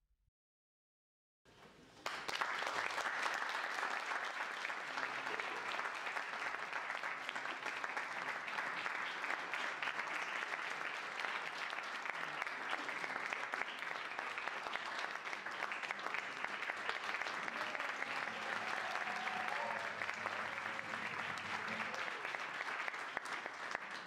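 Audience applauding steadily. It starts suddenly about two seconds in and is cut off abruptly at the end.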